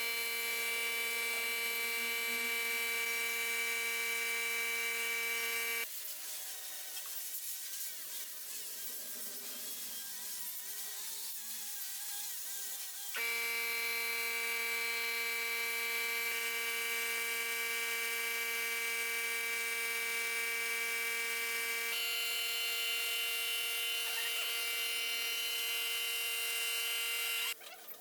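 Small electric power tool motor running at a steady speed with a constant whine, stopping about six seconds in and starting again about halfway through.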